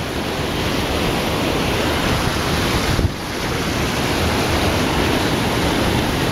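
Fast river water rushing through a narrow rock canyon, a steady even rush, with wind buffeting the microphone. The level dips briefly about halfway through.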